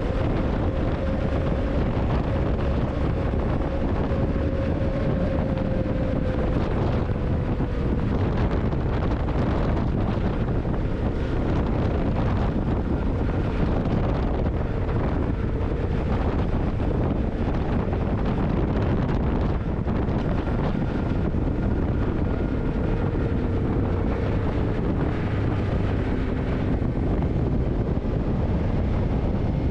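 Yamaha TDM900's parallel-twin engine running steadily under way, its pitch drifting gently down and up, buried in heavy wind noise on the microphone.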